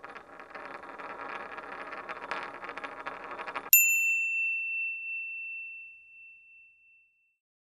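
Sound effect of a metal coin rolling, a rattly whirring with fine ticks, then, about four seconds in, a single high bell-like ding that rings out and fades over about three seconds.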